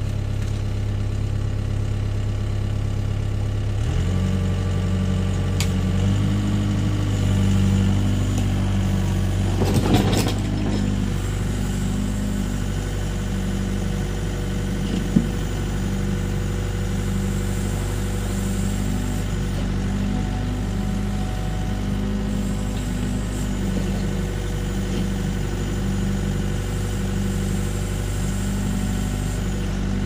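LiuGong hydraulic excavator's diesel engine running steadily, stepping up louder about four seconds in as the boom and bucket start working. A brief knock about ten seconds in and a short sharp click around fifteen seconds.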